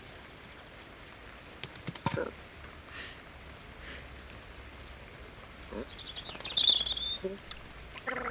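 A few soft clicks about two seconds in, then a short, high bird twitter about six seconds in, the loudest sound here.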